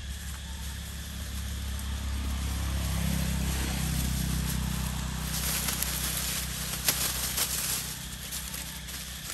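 Dry leaf litter rustling and crackling as macaques scuffle and scramble over it, loudest a little past the middle. Under it, a low steady hum swells and then fades.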